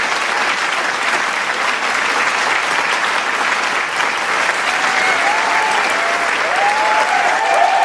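Large crowd applauding steadily in a dense wash of clapping, with cheering voices rising through it from about five seconds in.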